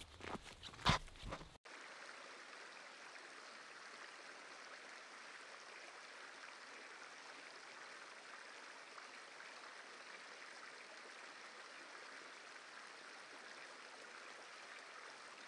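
Footsteps on a gravel trail for about the first second and a half, then a steady sound of a small mountain stream spilling over a rocky cascade.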